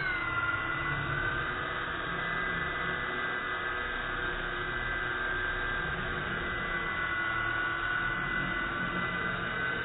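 Small quadcopter's motors and propellers whining, played back slowed to about a quarter speed, so the whine comes out as a steady low drone with a few held tones. Its pitch settles low just after the start and begins sliding back up at the very end.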